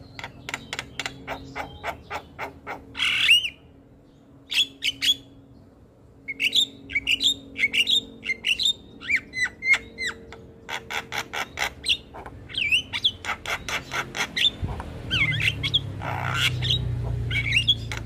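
Javan myna chattering: rapid runs of dry clicks mixed with short whistled notes that slide up and down, broken by harsh squawks, the loudest about three seconds in and another near the end.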